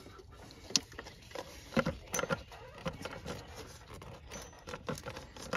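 Irregular clicks, taps and knocks of plastic and metal parts being handled as the front fuel filter cartridge is worked out of its housing.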